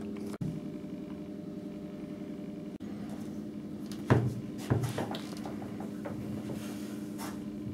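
Steady low electrical hum of the room, with a few thumps and knocks about four to five seconds in as an office chair is pulled out and sat in.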